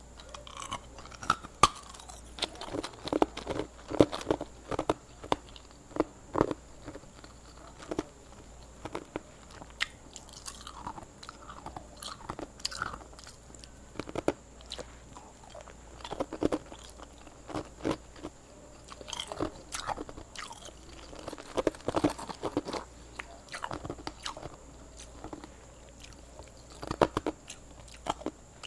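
Hard ice being bitten and crunched between the teeth, in clusters of sharp cracks and crunches with short pauses between bites.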